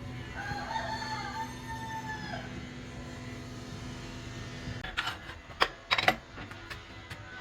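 A rooster crows once, a wavering call about two seconds long, over a steady low machine hum that cuts off about halfway through. A few sharp knocks follow.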